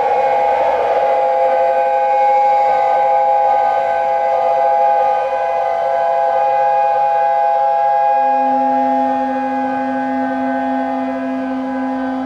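Soma Laboratories Lyra-8 analog drone synthesizer sustaining a drone chord of several steady tones, with a brief noisy wash at the start and a lower tone joining about two-thirds of the way through.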